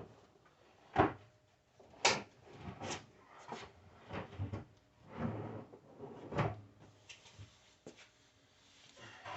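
Wooden cabinet drawers being handled, slid and knocked: a string of irregular wooden knocks with short rubbing and sliding sounds between them.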